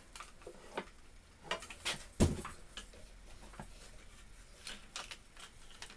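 Scattered light clicks and knocks of a plastic chuck guard being handled and fitted onto a bench drill's spindle housing, the loudest a dull knock about two seconds in.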